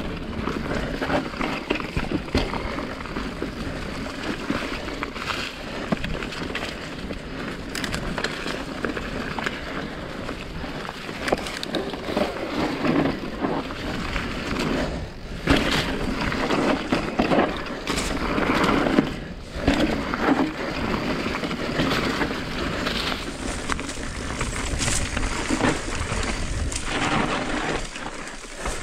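Mountain bike ridden over a dirt forest trail: tyres rolling over loose dirt and roots, the bike rattling and knocking over bumps, with a few harder jolts along the way.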